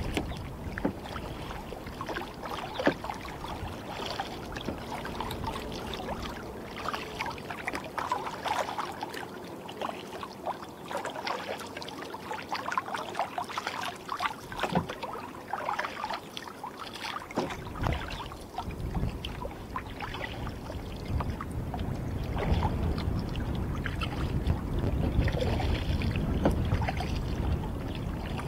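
Water splashing and lapping against a kayak's hull as it is paddled, with many small irregular splashes. A low rumble of wind on the microphone comes in at the start and again through the last third.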